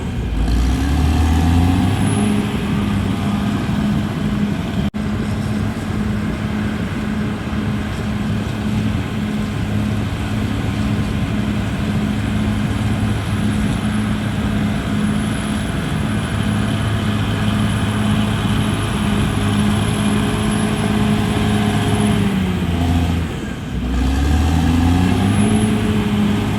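CAT D6R bulldozer's diesel engine working steadily under load. It revs up at the start, dips briefly near the end and then climbs again as the revs change.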